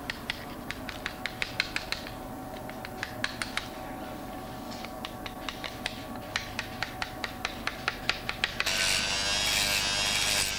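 Steel chisel struck with a hand hammer against rock, a rapid, irregular series of sharp taps chipping off loose stone and salt crystals. About eight and a half seconds in, the taps stop and a small electric hand tool starts up with a steady whine.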